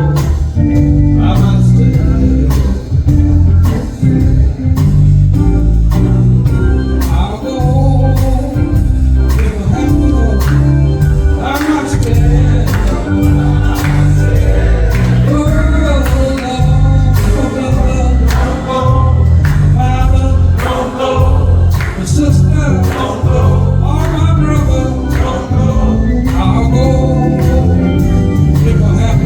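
Live gospel music: voices singing over a band with a heavy bass line and a steady drum beat.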